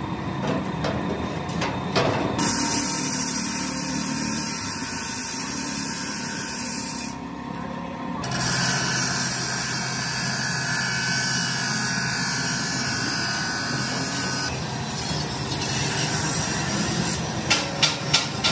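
Stick (arc) welding on steel angle iron: the arc crackles and hisses in two long runs with a break of about a second between them. A few sharp taps come near the end.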